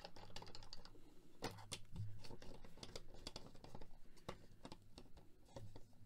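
Irregular small clicks and taps of fingers working the fittings on the top of a Zero Image 6x9 wooden pinhole camera.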